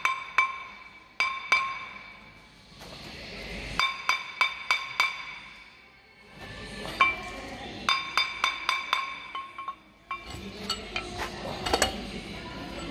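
Ball-peen hammer tapping a Ford Transit Custom's vented front brake disc in short, irregular runs of strikes. The cast iron disc rings after each blow. The taps are working the disc loose from the hub.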